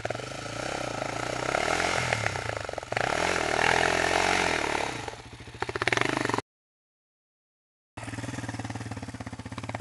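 Sport ATV engine revving hard with rising and falling pitch as the quad climbs out of a loose dirt pile, then easing to a slow, low firing rhythm. The sound cuts out completely about six and a half seconds in and comes back a second and a half later with the engine running at a steadier, lower pitch.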